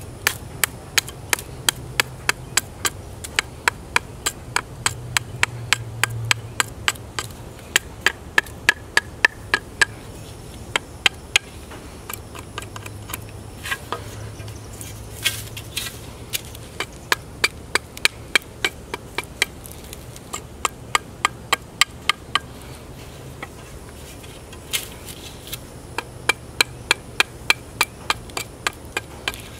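Chopper knife striking a wooden bow stave in quick, even chops, about two to three a second with a few brief pauses: roughing out the bow's handle.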